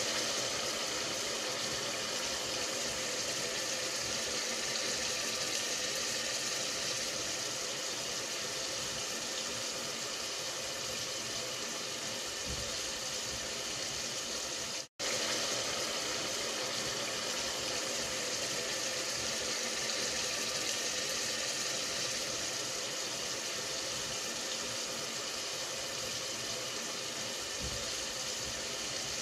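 A steady hissing, rushing noise with no clear rhythm, broken by a brief full dropout about fifteen seconds in.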